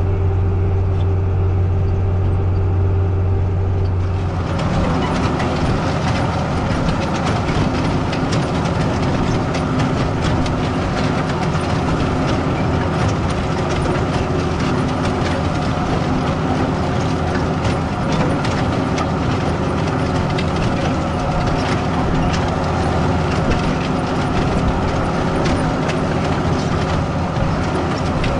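Steady low drone of a tractor engine heard inside the cab. About four seconds in it changes to the louder, rattling, gritty sound of a corn planter row unit working through dry sod, its spiked wheels churning clods and dirt, with the tractor running under it.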